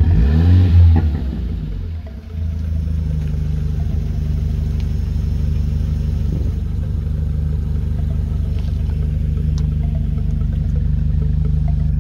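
Renault Mégane RS 250's 2.0-litre turbocharged four-cylinder engine revved once, its pitch rising and falling within the first second or so, then settling to a steady idle.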